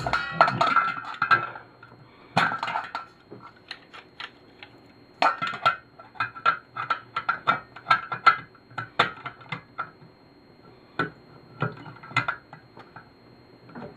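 Pliers clinking and knocking against a metal lamp shade and its centre fitting while a nut is worked loose: irregular short metallic taps with a brief ring, in clusters with quieter pauses between.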